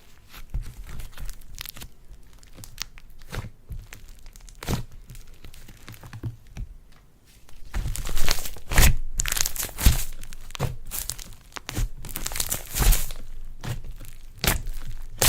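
Slime being worked and mixed by hand, giving irregular sticky crackles and pops, denser and louder in the second half.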